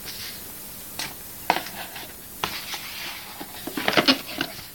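Paper leaflets and cardboard packaging from a phone box being handled: rustling and scraping with a few sharp clicks and taps, busiest near the end.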